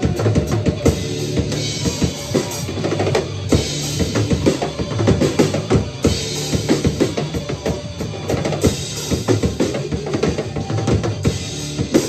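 Acoustic drum kit played hard and fast, with dense snare and bass drum strokes and cymbal wash, over a recorded rock song that it is played along to.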